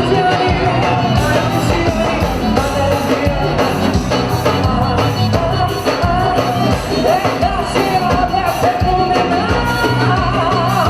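Forró music with a singer over a full band and a steady percussion beat, played loud.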